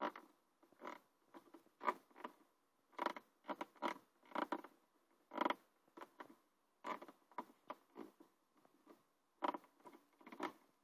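Skoda Octavia A5 door handle creaking each time it is worked, about a dozen short squeaks at uneven intervals. The handle mechanism squeaks before any repair has been done.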